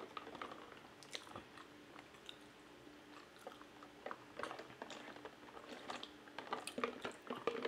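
Close-miked mouth sounds of sipping water through the straw of a large plastic water bottle: soft sips, swallows and small wet clicks, coming thicker in the second half.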